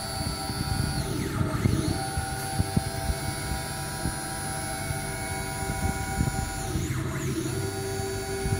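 Stepper motors driving the table axes of a 1965 Deckel FP1 milling machine converted to CNC: a steady whine over a low rumble. Twice, about a second in and again about seven seconds in, the whine sweeps down in pitch and back up as the axes slow and speed up again, with a few light knocks.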